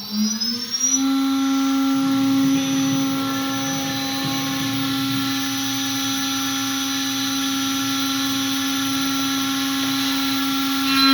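Spindle of an AK6060H CNC router finishing its spin-up in the first second, then running at a steady high speed with a steady high whine over a hiss.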